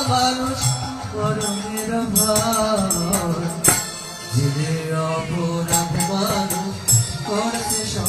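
Bengali kirtan music: a man singing a devotional song to his own electronic keyboard accompaniment, with hand percussion clicking over it.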